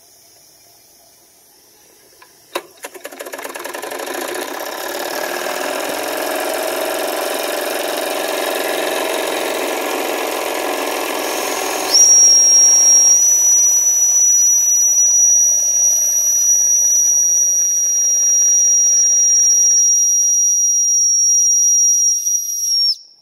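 Miniature electrically heated toy steam engine getting going: a sudden start about two and a half seconds in builds into fast, steady chuffing and steam hiss as the piston drives the flywheel. About halfway through the boiler's steam whistle is opened and gives one long, high, steady note for about eleven seconds, the chuffing falling back under it, until it cuts off near the end.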